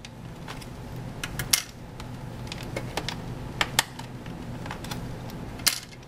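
Scattered small plastic-and-metal clicks and taps as two laptop SO-DIMM RAM modules are released from their spring retaining clips and slid out of their slots. A faint steady low hum lies underneath.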